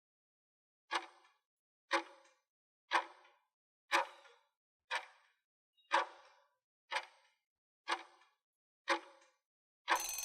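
Countdown-timer sound effect: a clock tick once a second, nine ticks in all, against dead silence. A bell-like ring starts right at the end, marking time up.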